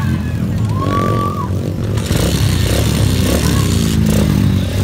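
125cc racing motorcycle engines running and revving as bikes pass on the dirt track, the pitch rising and falling with the throttle. A short high-pitched call sounds about a second in.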